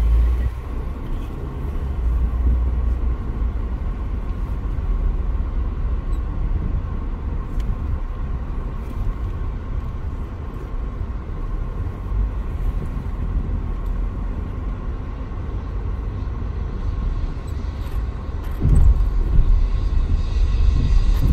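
Steady low rumble of jet airliner engines with a faint steady whine above it, growing louder near the end.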